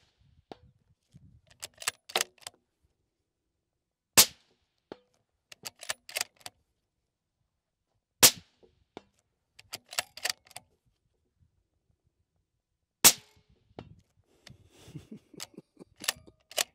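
Suppressed bolt-action precision rifle fired three times, about four seconds apart, with a quick run of metallic clicks from the bolt being worked between shots.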